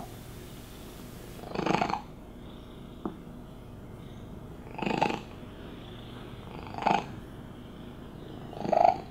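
A long-haired domestic cat purring unusually loudly, a purr measured at 91 decibels, which her carers think may be because she is a little deaf. The purr swells into four loud bursts about two seconds apart and is quieter in between. A short click comes about three seconds in.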